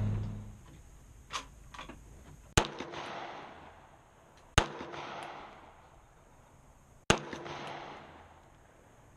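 Three handgun shots fired outdoors, about two and two and a half seconds apart, each followed by a rolling echo that dies away over about a second. Two light clicks come just before the first shot, and a vehicle engine fades out at the very start.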